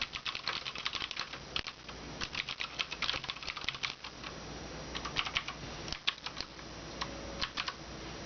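Typing on a Cooler Master MasterKeys Pro M keyboard with clicky Cherry MX Blue switches: a fast run of keystrokes for about four seconds, then slower, scattered strokes that stop shortly before the end.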